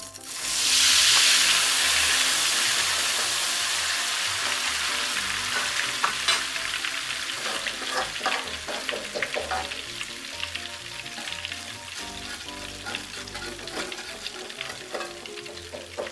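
Thin tapioca kremes batter hitting hot cooking oil in a metal wok: a loud burst of sizzling about half a second in that slowly dies down as the lacy batter fries. In the second half a metal spatula scrapes and taps against the wok.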